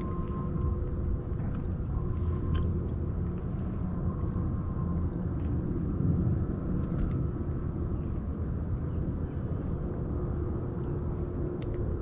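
Steady low rumble with a faint steady hum, as from a boat's motor running, with a few faint clicks over it.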